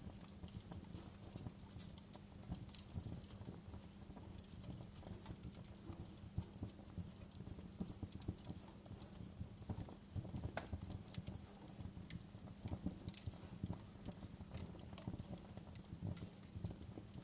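Wood fire crackling in a fireplace: irregular sharp pops and snaps over a steady low rumble of burning.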